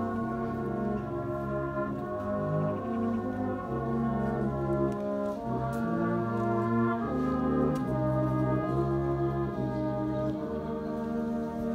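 Brass band playing a slow piece in held chords, the notes moving every second or so.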